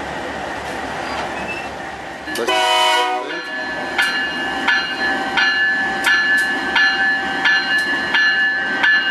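GE AC44i diesel-electric locomotive running as it approaches, sounding one short horn blast about two seconds in. Its bell then starts ringing, with about two strikes a second.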